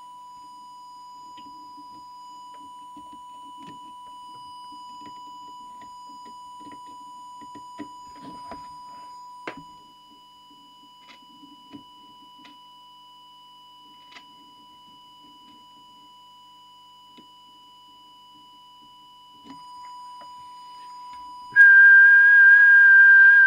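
Steady 1 kHz test tone from an audio oscillator modulating the CB transmitter while its FM deviation trimmer is set, with faint clicks of adjustment and handling. Near the end a much louder, higher whistle-like tone with hiss comes in for about two seconds.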